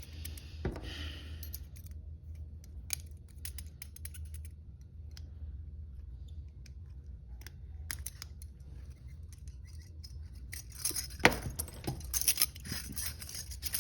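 Small metallic clicks and scrapes of a pick working in the lock of double-locked hinged handcuffs, with the cuffs rattling. The clicks are scattered at first and come thicker and louder near the end.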